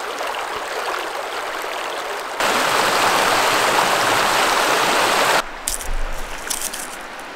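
Creek water running over rocks, a steady rush. About two and a half seconds in it jumps to a louder, closer rush of water tumbling through a small riffle. It cuts off abruptly about two seconds before the end to a much quieter background.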